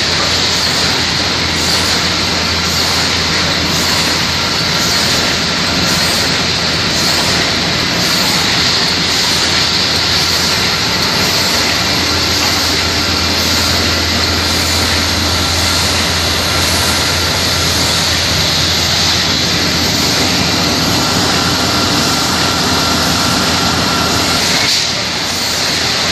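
Toilet paper and kitchen towel converting machinery running: a loud, steady mechanical din with a strong hiss over a low hum, and a faint regular beat about once a second.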